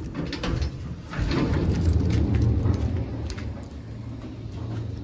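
Garage door being unlocked and opened by hand: a few clicks from the lock, then a low rumble as the door rises, loudest for about two seconds starting a second in, then easing off.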